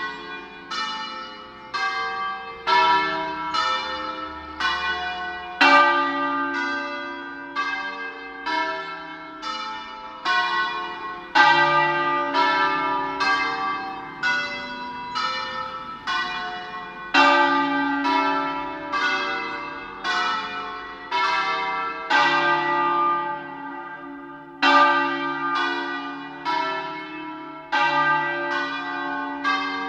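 Church bells in a bell tower ringing a steady sequence of single strokes on several bells of different pitch, about two strokes a second, each stroke ringing on and overlapping the next.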